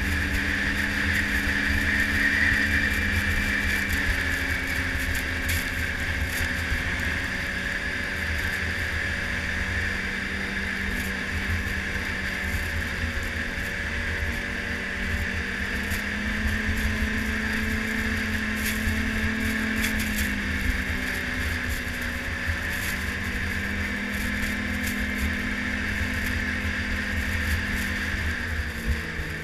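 Yamaha snowmobile engine running at a steady cruising speed, its drone wavering slightly up and down with the throttle and dropping in pitch near the end as the throttle eases. Wind buffets the microphone throughout.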